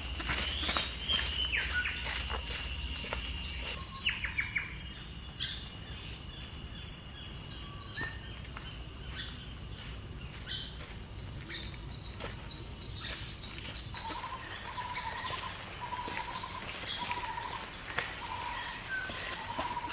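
Tropical forest ambience: birds chirping and calling, over a steady high insect buzz that stops about two-thirds of the way through. After that, one call, a short note, repeats about once a second.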